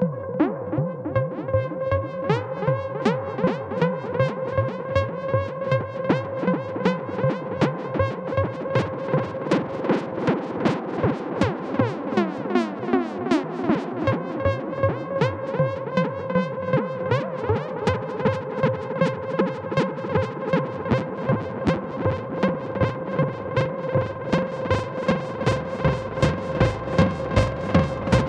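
Novation Bass Station 2 analogue synthesizer droning on a steady pitch while its looping, retriggered envelope pulses it about two to three times a second, colored by a tape-echo effect. Filter and pitch sweeps glide through the sound around the middle.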